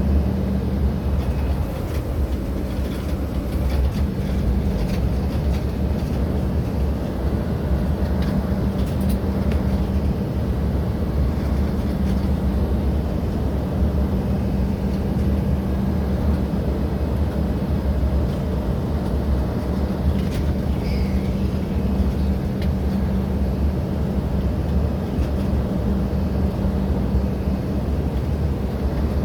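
Steady low rumble of an Embraer 175 regional jet's engines and airflow, with a constant low hum under it.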